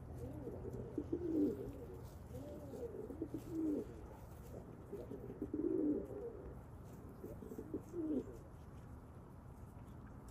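Domestic pigeons cooing, about four rounds of low, wavering coos.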